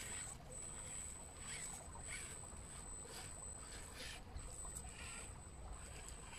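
Faint high-pitched whine from a Traxxas TRX-4M RC crawler's electric motor, dropping out and coming back as the throttle is worked, with repeated short scuffing and rustling as the tyres scrabble over roots and wet ground.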